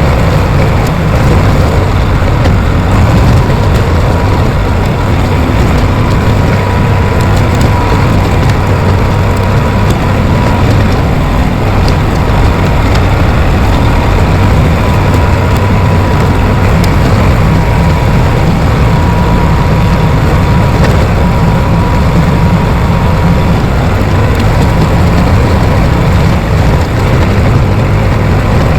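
Bulldozer's diesel engine running steadily under load, with a faint steady whine over the low engine sound.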